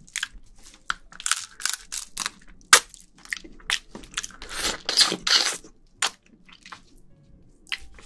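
Close-miked eating of spicy marinated raw blue crab: a quick run of wet, sticky smacks, crackles and crunches of soft shell, with a couple of longer sucking sounds a little past the middle as the meat is drawn out.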